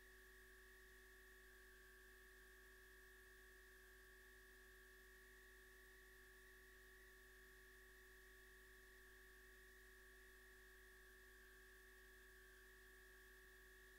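Near silence: a faint, steady electrical hum with a thin high whine, unchanging throughout.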